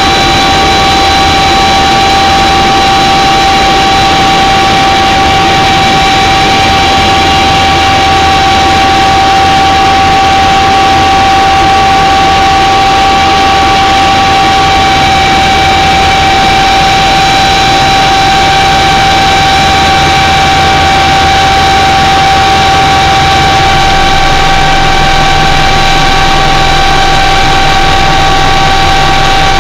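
Loud, steady aircraft engine noise heard inside the cabin: a continuous low drone with a constant high whine over it.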